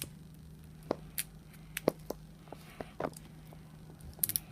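Sparse small clicks and taps of plastic toy packaging being handled, with a short cluster of crinkles just before the end.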